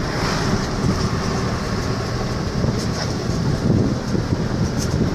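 Steady rumble of a moving vehicle's engine and tyres on the road, heard from on board, with a few light rattling clicks.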